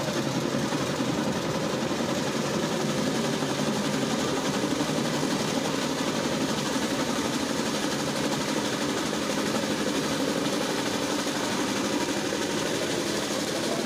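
Diesel engine of a stopped passenger train idling steadily.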